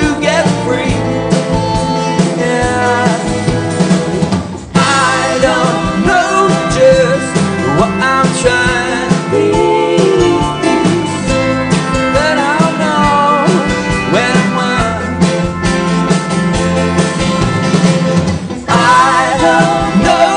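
A live rock band playing: acoustic and electric guitars, bass, drums and keyboards. The music briefly drops in level about four and a half seconds in and again near the end.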